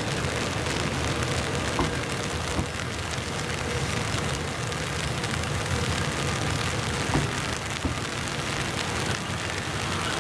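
A train rolling through the station: a steady low rumble and rolling noise from wheels on rail, with a couple of brief faint squeals.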